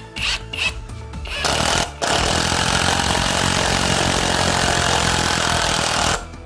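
Cordless impact driver sinking a long screw into a timber board. A few short bursts come first, then from about two seconds in a steady run of rapid hammering from its impact mechanism, which stops abruptly near the end as the screw seats.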